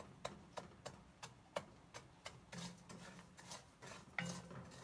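Coarse salt being stirred with a wooden spoon in a dry stainless steel pan, over a steady ticking about three times a second. Near the end the pan gives a brief ringing knock.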